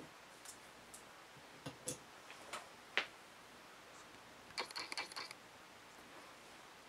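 Faint, scattered clicks and light taps as a brass ballpoint pen and its parts are handled and set down on a stone stand, with a quick run of small clicks a little past the middle.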